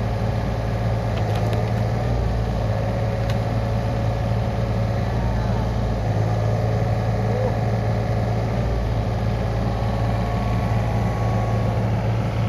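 Yanmar ViO35-6A mini excavator's three-cylinder diesel engine running steadily at a constant speed with a low hum.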